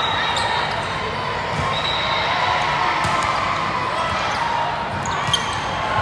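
Indoor volleyball hall ambience: volleyballs being hit and bouncing as scattered sharp smacks, over a steady hubbub of many voices echoing in the large hall.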